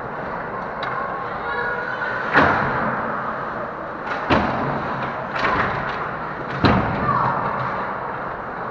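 Ice hockey play at close range: about five sharp knocks of stick, puck and boards, the loudest about 2.4 s in, over a steady din of the rink.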